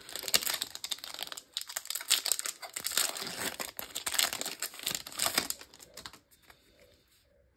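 Foil-lined wrapper of a Magic: The Gathering booster pack being torn open and crinkled by hand, a dense crackling that dies down about six seconds in.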